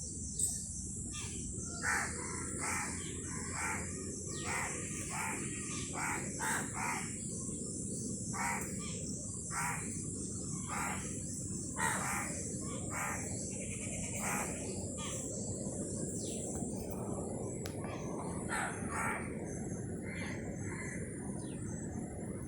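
Birds calling: a string of short calls, about one every second, over a steady high hiss and a low background rumble.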